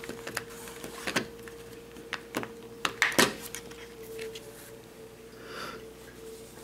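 Clicks and knocks of a small plastic quadcopter's body shell being handled and pried off, several sharp snaps in the first few seconds, then a soft rustle. A steady faint hum runs underneath.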